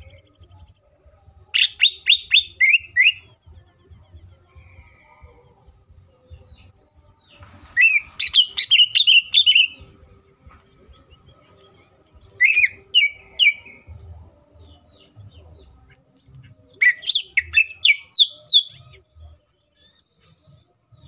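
Greater green leafbird (cucak ijo) singing in four bursts of fast, chattering notes that slide up and down, each one to two seconds long, with pauses of a few seconds between them.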